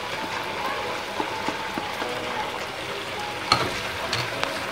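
Masala sizzling in a frying pan as yogurt is added and stirred in with a wooden spatula, with light scraping clicks and one sharper knock about three and a half seconds in.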